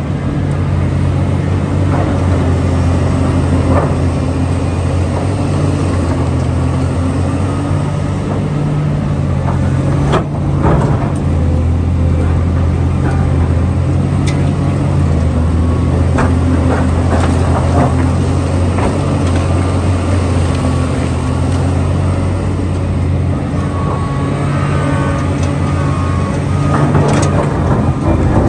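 Heavy diesel engine running steadily at a low, even pitch, with scattered short knocks and clanks of metal over it.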